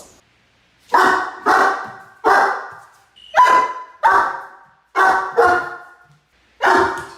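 A dog barking repeatedly: about eight loud barks, some in quick pairs, each fading quickly.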